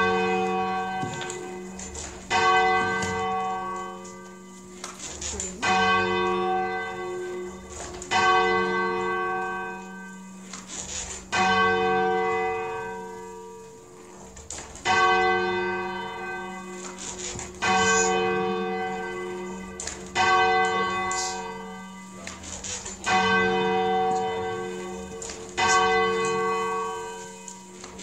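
Church bells rung full-circle by hand from the ringing chamber below. A loud strike comes every two to three seconds, each ringing out and fading, with fainter strikes between and a steady low hum underneath.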